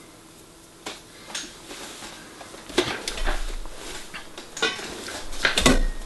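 Handling noise from a long brass door-chime tube and a wooden dowel as a woven hanger cord is pulled tight and knotted over them: irregular light clicks and knocks, the loudest near the end.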